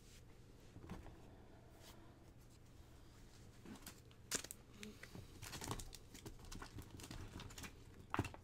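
Faint rustling and handling of art supplies and paper, with scattered clicks and two sharp knocks, one about four seconds in and one near the end.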